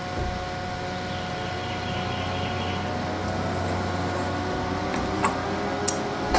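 Steady hum of a small electric desk fan running, with a few light taps and clicks near the end as the screen frame is handled.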